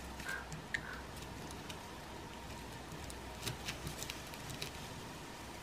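Light clicks and rattles of .177 lead airgun pellets being picked from a metal tin and set on a digital scale's metal pan: a couple of clicks near the start and a cluster of them about halfway through, over a faint steady hiss.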